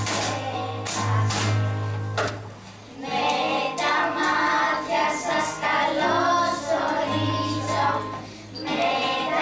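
A children's choir singing a call-and-response style folk song with percussion accompaniment. There are short breaks between phrases, about a third of the way in and again near the end.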